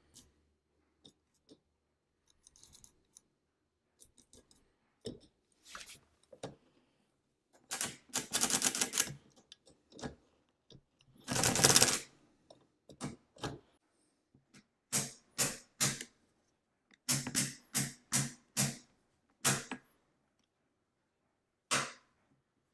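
Antique brass pinwheel mechanical calculator worked by hand: faint clicks of the setting levers, then two clattering runs of about a second each as the crank turns the pinwheel drum, followed by a string of about ten separate sharp clacks and one last clack near the end.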